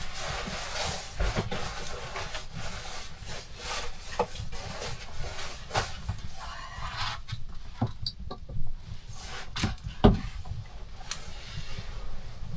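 Irregular knocks, clicks and rubbing sounds, with the loudest knock about ten seconds in.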